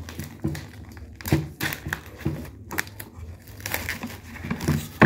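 Plastic wrap around a packaged raw chicken crinkling in irregular bursts as it is cut open with scissors and peeled off the foam tray.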